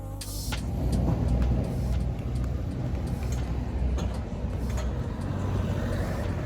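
Low, steady engine rumble, growing louder about a second in and then holding.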